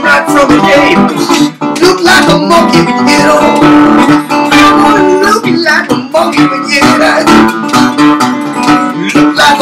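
National tri-cone resonator guitar played with a bottleneck slide: plucked notes with the pitch sliding up and down between them.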